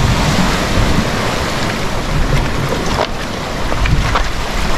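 Steady wind rushing over the microphone, with sea surf washing against the rocky shore beneath it.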